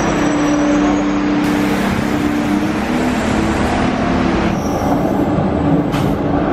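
Buenos Aires Subte metro train running, heard from on board: steady noise with a low hum, and a single click near the end.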